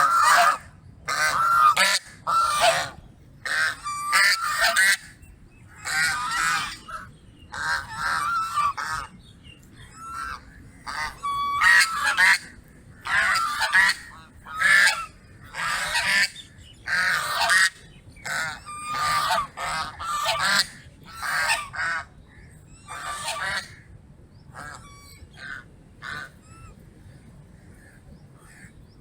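Goose honking over and over, a long run of loud separate honks about one or two a second, thinning to a few faint calls near the end.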